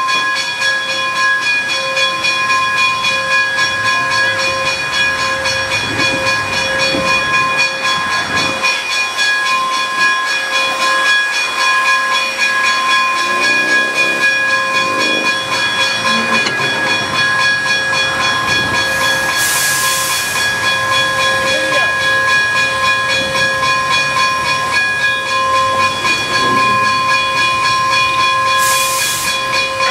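Wilmington & Western 4-4-0 steam locomotive No. 98 moving slowly, with a steady hiss of steam and a steady high-pitched whine. Two brief, louder hisses come about twenty seconds in and again near the end.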